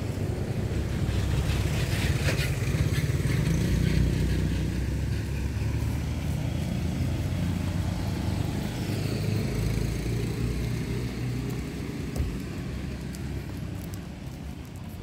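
Motor vehicle engine running close by, a low rumble that is loudest in the first few seconds and fades away toward the end.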